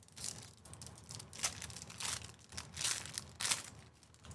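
Foil wrapper of a Panini Phoenix basketball card pack being torn open and crinkled by hand: an irregular run of crackling, with several louder rips in the second half.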